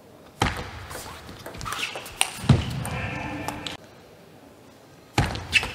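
Table tennis ball clicking off bats and the table during rallies, sharp knocks that echo in a large hall, the loudest about two and a half seconds in. The sound drops away suddenly near the middle and the hits start again about five seconds in.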